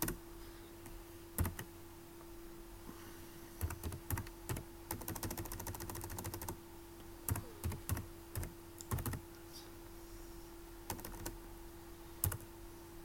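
Computer keyboard typing in irregular bursts of keystrokes with pauses between them, over a faint steady hum.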